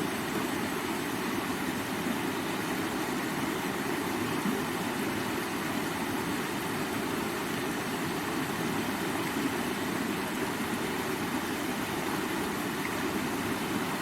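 Flowing river water rushing steadily, a constant low, even rush with no distinct drips or splashes.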